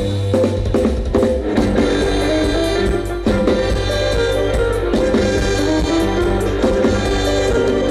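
Band music with drum kit and guitar playing a steady beat, with a short break about three seconds in.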